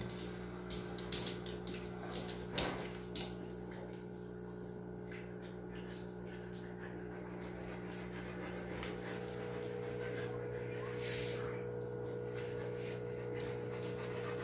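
Siberian husky in labour panting as she paces restlessly, with a few sharp clicks in the first three seconds. A steady low hum runs underneath.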